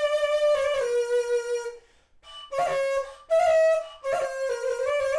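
Reproduction Mexica membrane flute being played: a tone with many overtones stepping between a few close notes, breaking off about two seconds in, then resuming in short notes.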